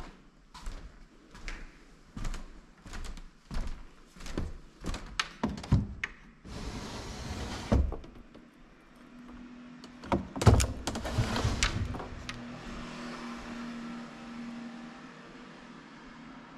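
A run of knocks and thuds about two a second, then a short scraping rush ending in a bang, another cluster of loud knocks, and a faint low steady hum under the second half.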